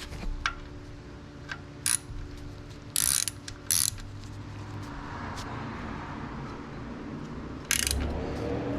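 Hand ratchet wrench clicking in a few short spells as the oil drain plug is run back in and snugged.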